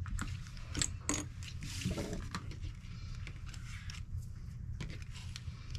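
Thick transparent plastic sheet being handled and clipped in place: a few sharp small clicks and a brief plastic rustle about a second and a half in, over a steady low hum.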